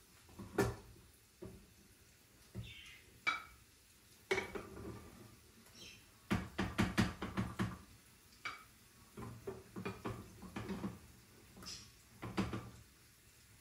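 Spoon clinking and scraping against a cooking pot and a ceramic bowl as food is dished up, in irregular knocks with a quick run of clinks about halfway through.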